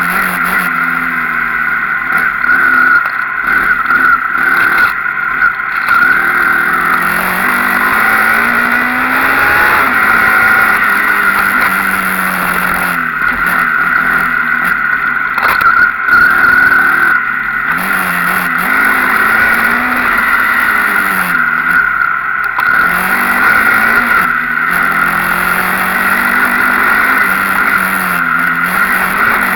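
Enduro motorcycle engine being ridden hard, its revs climbing and dropping again and again through throttle and gear changes, over a steady high whine.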